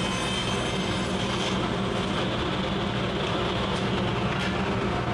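Table saw running steadily while ripping a sheet of 3/4 or 1/2 inch plywood.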